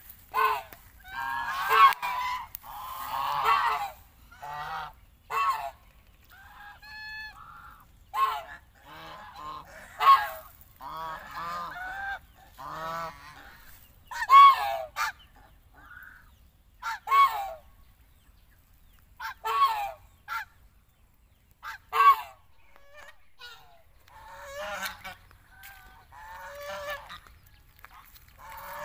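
Flock of domestic geese honking repeatedly in short, irregular calls. The calls come thickly in the first half and more scattered later, with brief pauses between them.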